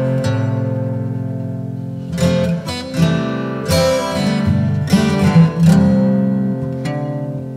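Background music: acoustic guitar strumming chords that ring and fade, with a fresh strum every second or two.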